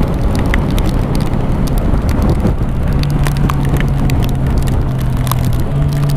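Wind and road noise of a motorcycle at motorway speed, with scattered clicks of raindrops striking the camera. From about three seconds in, the Yamaha MT-09 Tracer 900's three-cylinder engine holds a steady hum at cruise.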